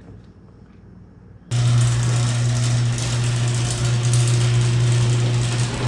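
Garage door running on its opener, starting suddenly about a second and a half in: a loud, steady motor hum under a harsh, noisy clatter of the door hardware, like a train going off the rails. This is a door that has had little maintenance in about 25 years, its moving parts dirty and unlubricated.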